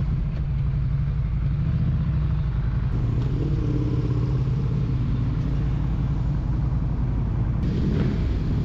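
Motorcycle engine running steadily while riding, heard on board the bike with road and wind noise; a higher engine note shifts in pitch for a couple of seconds in the middle.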